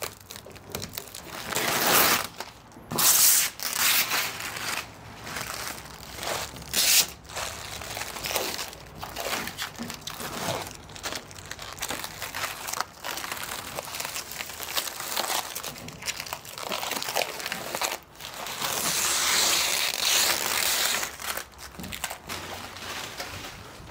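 Plastic crash-wrap film being peeled off a boat hull and bunched up, crinkling and rustling in irregular bursts, with a longer stretch of crinkling near the end.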